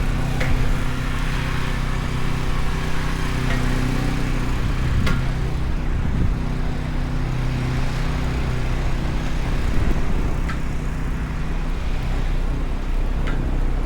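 A motor vehicle's engine running steadily close by, a low hum that holds one pitch, with a few faint clicks.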